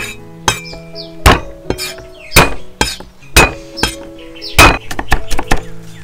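A heavy knife chopping on a chopping board: single hard chops about once a second, then a quicker run of lighter chops near the end, over background music.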